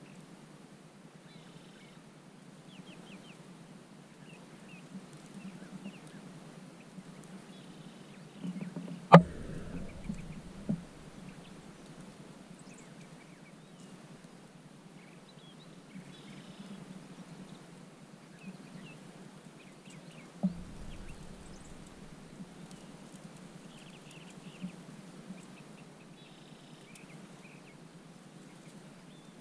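Quiet open field with faint short bird calls, broken by one sharp loud crack about nine seconds in and smaller knocks about ten and a half and twenty seconds in.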